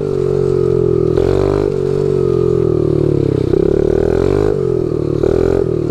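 Small 50cc pit bike engine running at a steady part throttle while being ridden, its pitch rising and dipping slightly with the throttle, with a few brief knocks.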